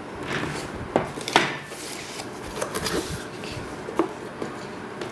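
Cardboard graphics card box being handled and opened: rustling and scraping of cardboard with a few sharp taps, the loudest about a second and a half in.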